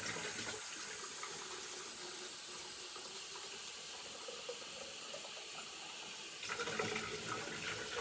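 Tap water running from a laundry-sink faucet into a film developing tank, filling it with plain water to pre-soak the film. A steady rush of water whose sound changes in the last second or so.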